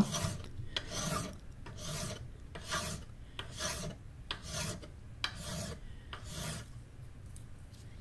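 10-inch double-cut bastard file rasping across the end of a small brass piece in steady strokes, about one a second, stopping near the end. This is rough filing to clean up the bandsaw cut.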